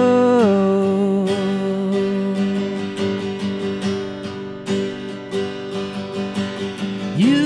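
Live acoustic guitar and a man's singing voice. A long sung note drops in pitch about half a second in. Strummed acoustic guitar chords fill the middle, and near the end the voice slides up into a new held note.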